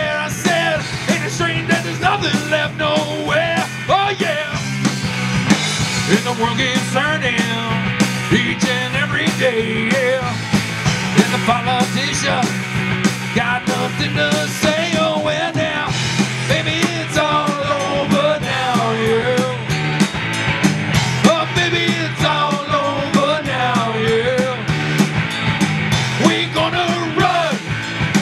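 Live rock band playing: electric guitars, bass guitar and drum kit, loud and steady, with a lead line that bends and wavers in pitch over the top.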